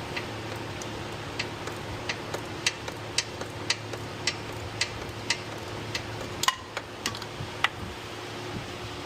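3/8-inch-drive ratchet clicking in short strokes, one sharp click about every half second, as it turns a 24 mm socket to loosen an oil pressure switch in a tight space. There is a louder clack about six and a half seconds in.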